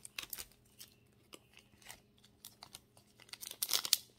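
Foil wrapper of a Japanese Pokémon card booster pack crinkling and tearing as it is pulled open by hand. Scattered small crackles, with a louder run of crinkling near the end.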